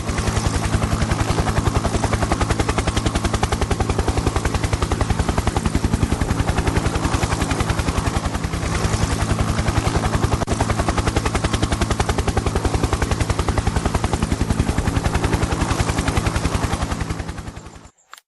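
Helicopter rotor chop: a rapid, even beat of blade slaps over a steady engine hum, holding at one level, then fading out and stopping near the end.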